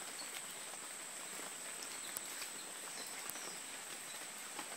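Faint outdoor ambience: a steady high-pitched hiss or drone, with a few faint bird chirps and small ticks scattered through it.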